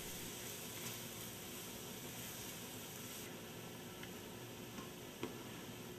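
Onion, ginger-garlic paste and whole spices frying in hot oil in a pan, a steady sizzle. There is one short click about five seconds in.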